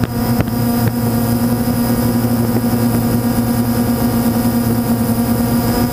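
Multirotor camera drone's motors and propellers humming steadily at a constant pitch as it climbs, heard up close from the camera on board. A couple of faint knocks in the first second.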